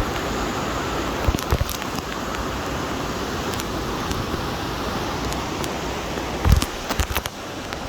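Steady rush of moving river water, with a few sharp knocks about a second and a half in and a louder cluster of them near the end.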